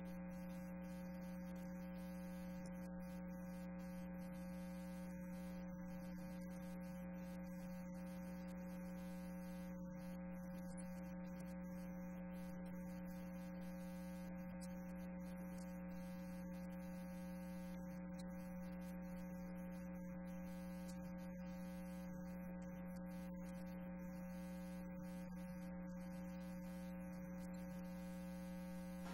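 Steady electrical hum: a low, unchanging drone with several fainter higher tones above it.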